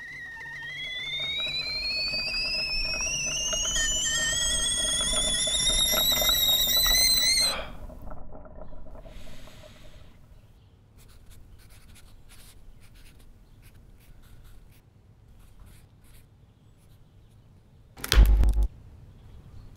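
A stovetop kettle whistle rising steadily in pitch and getting louder, then cutting off suddenly after about seven and a half seconds. After it come faint pencil scratches on paper, and one short loud thump near the end.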